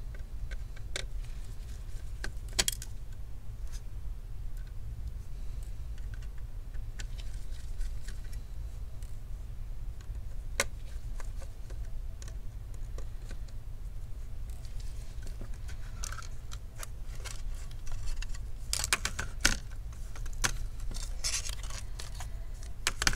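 Small screwdriver and loose metal parts being handled while a laptop CPU fan is unscrewed: scattered light clicks, taps and short scrapes, more frequent near the end, over a steady low hum.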